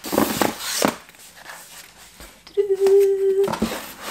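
Cardboard rustling and scraping as a shipping box is rummaged through and cardboard vinyl record mailers are pulled out, with a short hummed note about two and a half seconds in.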